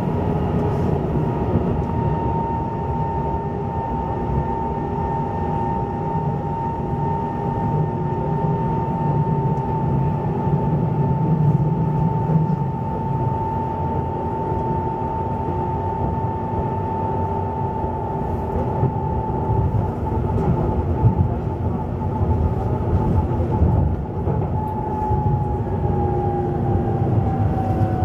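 Duewag B80D light-rail car running between stops, heard from inside the car: a steady rumble of wheels on track under a high whine from the drive. Over the last few seconds the whine falls in pitch as the car slows.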